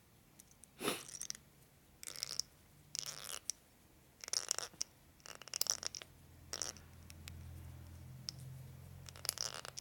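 Short scrapes and rattles of small metal nitrous transfer pump parts being handled and worked on a bench, about seven in all, with a faint low hum joining in the second half.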